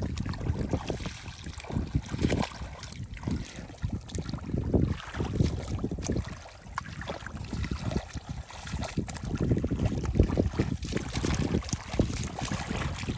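Shallow water splashing and sloshing in uneven bursts, with wind buffeting the microphone.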